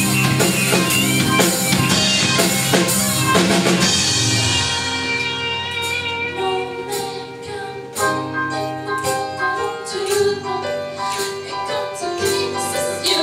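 Live band playing a French pop song, with drum kit and guitar under a woman singing lead into a microphone. About four seconds in, the drums thin out and a lighter accompaniment carries the voice.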